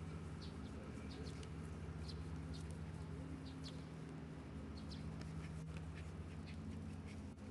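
Outdoor ambience: scattered short, high bird chirps over a steady low hum.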